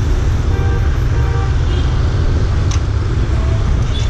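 Road traffic noise: a steady low rumble of passing vehicles and engines.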